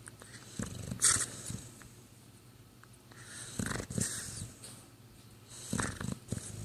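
A sleeping pet snoring, three noisy breaths about two and a half seconds apart, the first the loudest. The snoring comes from damaged sinuses.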